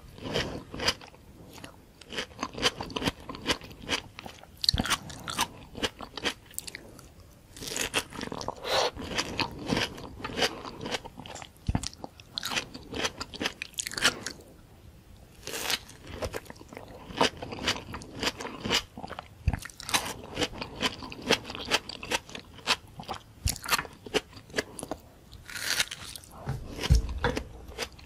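Close-miked biting and chewing of juicy tomato slices topped with whipped cream: wet, crackly mouth sounds in irregular runs with short pauses.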